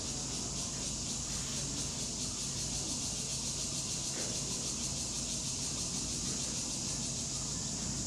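Steady high-pitched chorus of insects, shrilling without a break with a fine rapid pulse, over a faint low steady hum.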